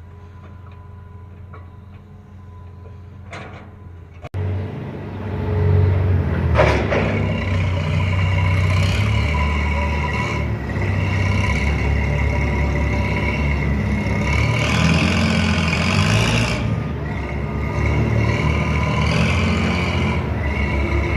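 Heavy diesel construction machine engine running with a deep, steady rumble, much louder from about four seconds in, with a brief sharp burst a couple of seconds later.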